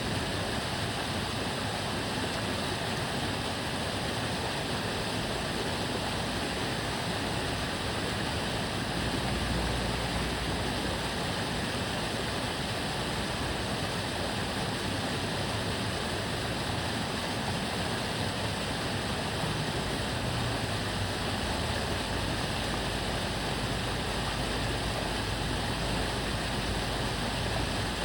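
Water babbling steadily along an aqueduct canal. A low rumble of passing cars swells under it a third of the way in and again near the end.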